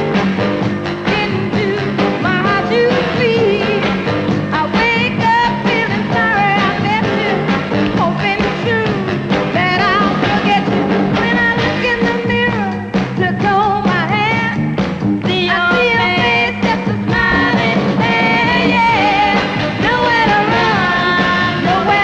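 1960s Motown soul-pop song: a female voice sings a gliding melody over a full band with a driving beat.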